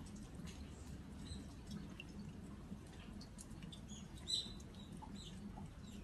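Light autumn rain dripping onto earthenware sauce jars, with small birds chirping in short high notes; one louder chirp comes about four seconds in.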